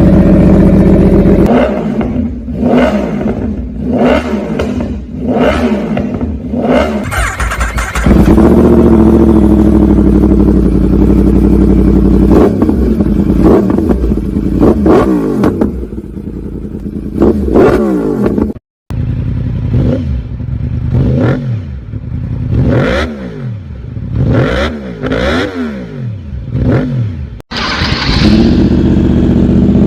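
Yamaha YZF-R1 inline-four engine with aftermarket exhausts being revved in place: repeated quick throttle blips rising and falling in pitch about once a second, with a longer steady hold in between. The sound cuts off abruptly twice and comes back with a different exhaust tone, settling to a steady idle near the end.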